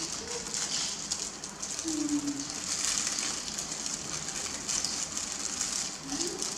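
Thin plastic food-prep gloves crinkling and rustling as hands handle rice paper and fillings. A dove coos softly three times in the background.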